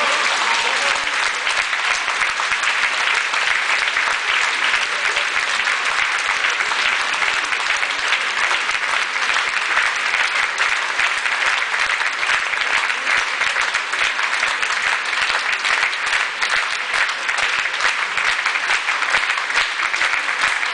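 Theatre audience applauding after a ballet performance: a dense, steady clatter of many hands clapping, with no let-up.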